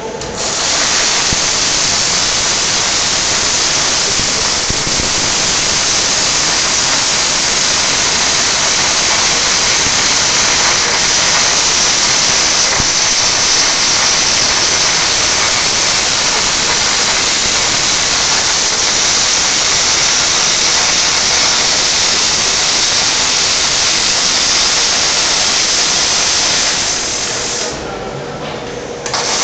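Panasonic robotic MIG welder's arc crackling and hissing steadily through a long weld. It stops near the end, when the arc goes out between welds.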